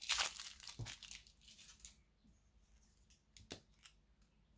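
Crinkly plastic rustling and crackling for about two seconds while a Marvy Uchida white pigment marker is being opened, then a single sharp click about three and a half seconds in as its cap comes off.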